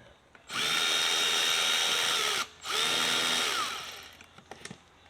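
Power drill run in two bursts, the first about two seconds and the second shorter. Each spins up to a steady whine and winds down when released.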